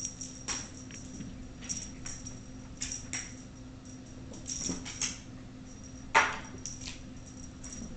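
Kittens playing with a wand toy: scattered light thumps, scuffles and toy rattles, with one louder scuffle about six seconds in.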